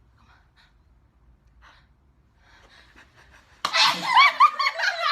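A young woman sneezes, one sudden loud burst about three and a half seconds in after a few faint breaths. It breaks straight into high-pitched laughter in quick repeated bursts.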